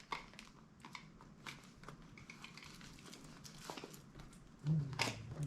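Faint crinkling and light clicks of packaging and a sunglasses case being handled. A brief, louder low sound comes near the end.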